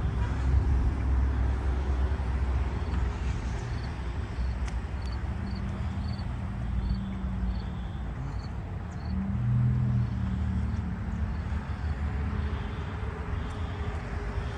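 Steady low rumble of road traffic. For a few seconds in the middle come faint, short, high beeps, about two a second, from the smoke detectors sounding inside the building.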